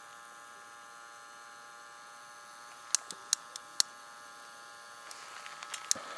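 Small water-circulation pump of a camping hot-water mat heating setup humming steadily. Sharp clicks come from the gas-canister stove, a few about three seconds in and a quicker run near the end.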